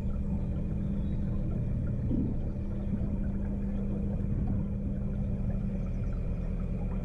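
Narrowboat engine running steadily at cruising speed, a continuous low hum.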